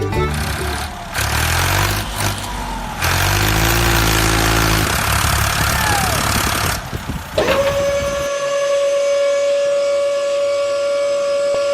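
Truck engine running and revving with shifting pitch. About seven seconds in it gives way to a long steady siren-like tone that sweeps up quickly and then holds one pitch.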